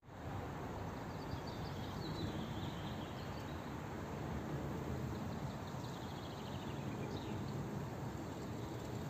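Outdoor ambience: a steady rush of background noise with small birds singing over it twice, the second a quick trill about six seconds in.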